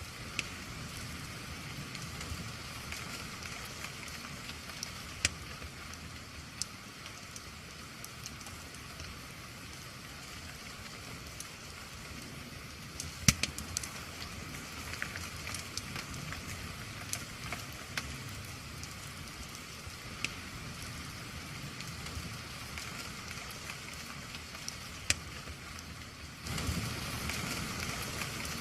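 Wood fire crackling, with scattered sharp pops over a steady hiss of rain. The loudest pop comes about halfway through, and near the end the rain hiss suddenly gets louder.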